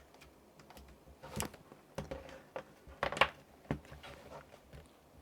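Handling noises from a laptop and its charger: a series of light knocks and clicks, the loudest about three seconds in, as the charger is plugged in.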